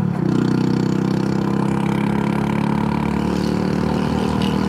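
Honda Super Cub C125's single-cylinder engine running under way, with a brief drop in pitch right at the start and then a steady pull.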